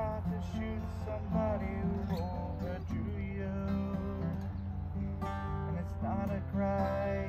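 Two acoustic guitars played together, a plucked melody over picked chords, with some notes sliding in pitch.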